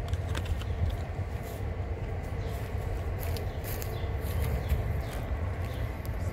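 Outdoor ambience: a steady low rumble with scattered small clicks and rustles over it.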